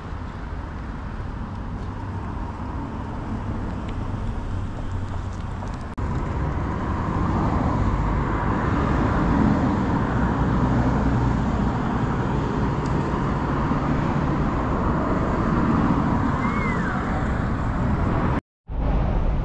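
Steady road traffic noise from passing cars, louder from about six seconds in, with a brief drop-out near the end.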